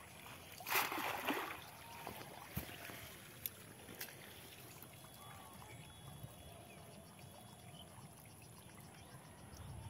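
Water splashing about a second in as a cast net is hauled in by hand through shallow water, followed by faint trickling and a few small splashes and ticks.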